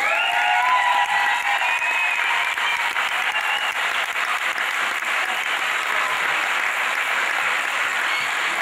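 A crowd applauding steadily, with a few voices cheering near the start.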